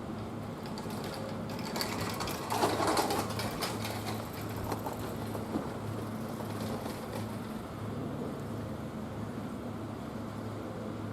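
Kintetsu electric train running past, with a cluster of wheel clicks about two to four seconds in over a steady low hum.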